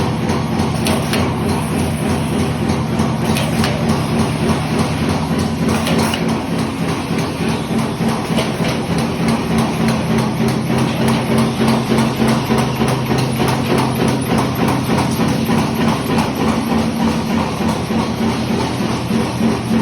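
Steel roll-forming machine running: a steady low motor hum with a dense mechanical clatter over it, settling into a regular pulsing rhythm about halfway through.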